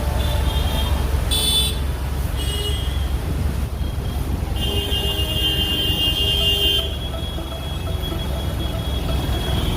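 Road traffic with vehicle horns honking: two short toots in the first three seconds, then a longer horn blast of about two seconds near the middle, over a steady low rumble of engines.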